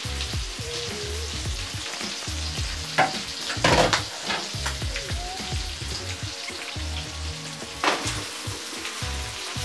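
Chicken pieces frying in hot oil, a steady sizzle, with a few sharp clacks about three, four and eight seconds in.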